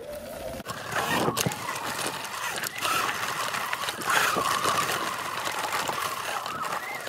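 Segway X260 electric dirt bike riding along a dirt trail: the electric motor's whine rises and falls with the throttle over a steady rush of tyre and wind noise, with a few sharp knocks from bumps.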